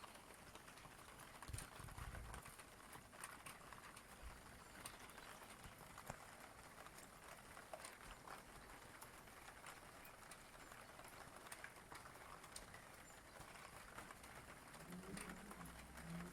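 Rain falling: a faint steady hiss with scattered drops ticking, and a brief low hum near the end.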